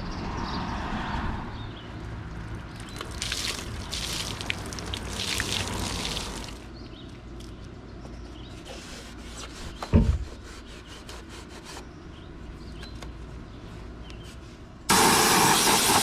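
Handling and scraping noises as the wet window air-conditioner chassis is worked on its wooden blocks, with one thump about ten seconds in. Near the end a compressed-air blow gun starts with a sudden loud, steady hiss, blowing the washed unit dry.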